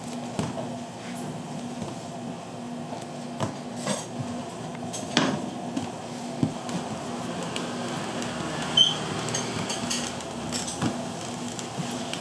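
Food-stall clatter: scattered knocks and clinks of dishes and utensils over a steady low hum, with one brighter ringing clink about nine seconds in.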